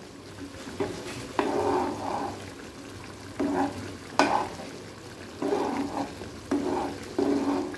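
Metal spoon stirring a thick, simmering coconut-masala vegetable gravy in a non-stick kadai: short repeated scraping strokes over a low bubbling, with one sharp click of the spoon against the pan about four seconds in.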